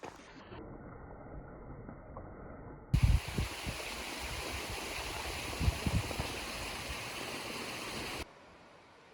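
Steady rushing of a mountain stream, a full, even hiss that jumps louder about three seconds in and drops away abruptly near the end, with a few low thumps of wind on the microphone.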